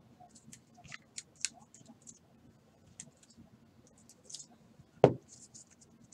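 Trading cards in hard plastic holders and toploaders clicking and tapping against each other as they are handled and stacked on a table, with one louder knock about five seconds in as a holder is set down.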